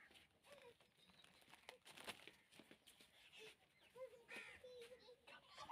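Near silence, with a few faint taps and a faint animal call held for about a second, about four seconds in.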